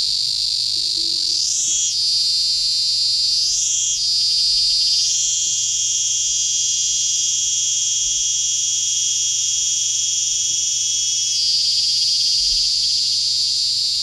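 Malay cicada singing: a few swooping phrases about two seconds apart, then a long, steady, high-pitched drone that steps down to a lower pitch for the last couple of seconds.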